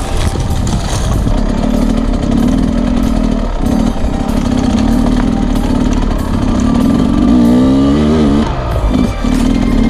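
Enduro dirt bike engine running under load on a singletrack climb, its pitch rising and falling with the throttle about three-quarters of the way through, with short dips as the rider backs off.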